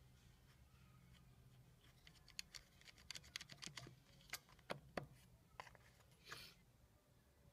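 Faint, irregular clicks and taps of hands working around a bolt on a small generator's air filter mount, with a brief scrape about six seconds in.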